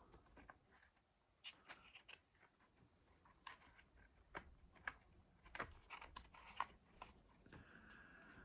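Near silence with faint, scattered light clicks and taps of small parts and tools being handled while an RC truck's front-end steering assembly is put together.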